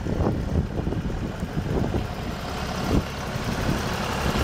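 A John Deere 5410 tractor's 4.5-litre four-cylinder diesel engine running as the tractor drives slowly over a dirt yard. It gets a little louder toward the end, and there is a single thump about three seconds in.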